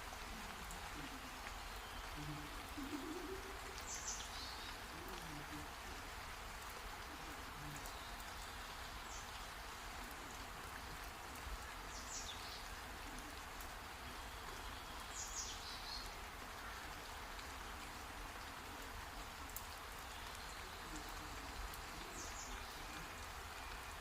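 Steady rain falling, an even hiss, with five short high chirps that fall in pitch, scattered through it.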